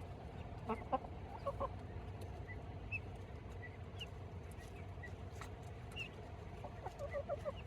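Backyard chickens clucking in two short bouts, about a second in and again near the end, with brief high chirps scattered in between over a steady low rumble.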